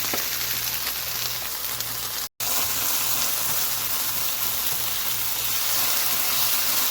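Sliced beef wieners, garlic and shallot frying in sunflower oil with condensed tomato soup just poured in, sizzling steadily in the pan. The sound drops out for an instant about two seconds in.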